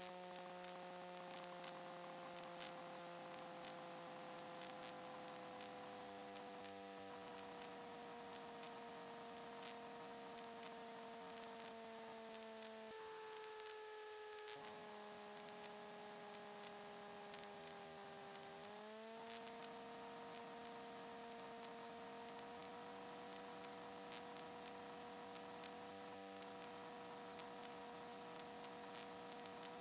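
Faint electrical hum and whine on the aircraft's intercom/radio audio feed, over a light hiss. Several steady tones slowly sink in pitch, then rise back up about two-thirds of the way through.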